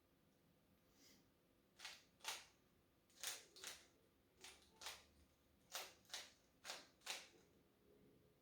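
Rubik's cube layers being turned by hand: about ten faint plastic clicks, mostly in pairs about half a second apart.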